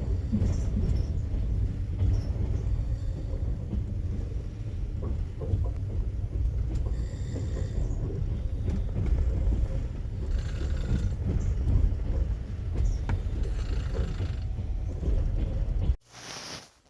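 Train carriage interior while moving: a steady low rumble with scattered clicks and rattles from the open sleeper (platzkart) car, cutting off abruptly near the end.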